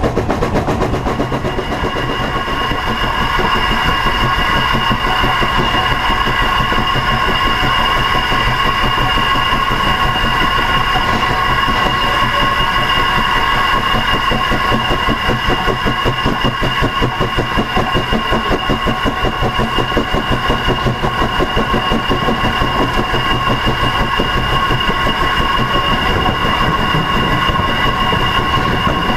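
Narrow-gauge K-27 2-8-2 steam locomotive running along the track, heard from its front headlight: a steady rumble with a fast, even pulsing and a constant high whine.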